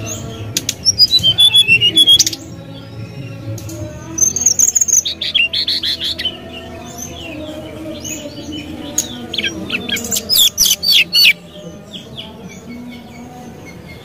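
Brown-chested jungle flycatcher singing: a falling run of clear whistled notes, then bursts of fast chattering trills and chirps a few seconds apart, with softer twittering between the bursts.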